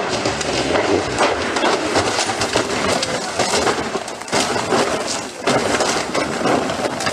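Rally cars crashing and rolling over: a dense run of crunching impacts and scraping as the bodywork strikes the road and verge.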